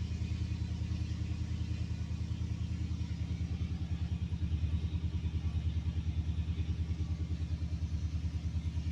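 2014 Ford Raptor's 6.2-litre V8 idling steadily with a regular low pulse. It is running after a crank-no-start fault traced to fuse 27 was repaired.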